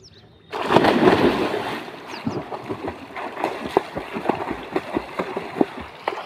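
Two swimmers diving into a pond, a loud splash about half a second in, then steady choppy splashing from their arm strokes and kicks as they swim a race away across the water.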